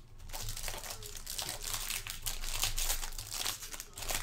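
Foil trading-card pack wrappers crinkling as packs are handled and opened, a continuous run of fine crackles.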